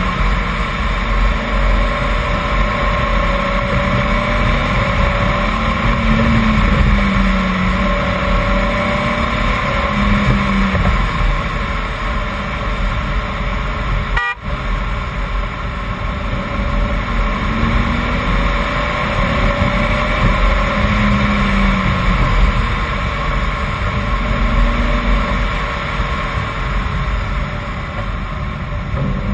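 BMW 328i straight-six, fitted with an M50 intake manifold, pulling hard uphill. Its note rises and falls over and over as it accelerates out of bends and backs off into them. Heavy wind rush and tyre-on-road noise sit under the engine throughout, with a brief break about halfway through.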